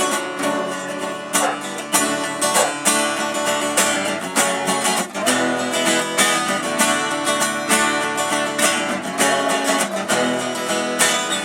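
Instrumental music led by a strummed acoustic guitar, with a steady rhythm of strokes.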